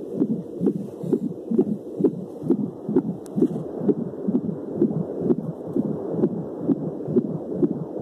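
Fetal heartbeat picked up by a home Doppler probe pressed on a pregnant belly, played through a portable speaker: fast, even whooshing beats, a little over two a second.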